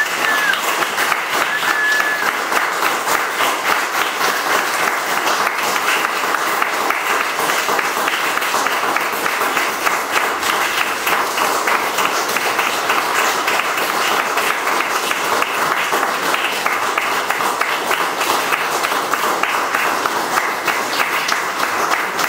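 Audience applause: many people clapping in a dense, steady patter after a choral performance.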